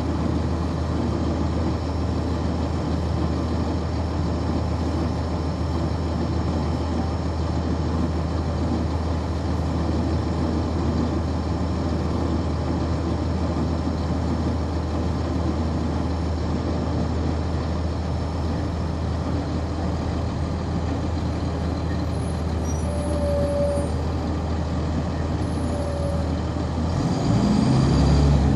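Cummins ISC diesel engine of a 1999 NovaBus RTS transit bus, heard on board, running steadily at a low, even pitch. Near the end it revs up with rising pitch as the bus accelerates.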